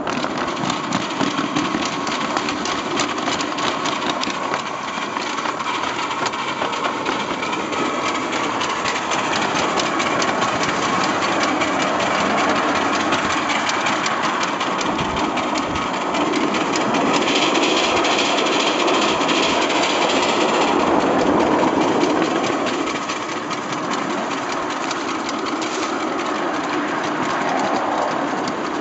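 7¼-inch gauge American-outline miniature steam locomotive running along its track, chuffing with steam hiss and its wheels clattering on the rails. It grows a little louder for a few seconds past the middle.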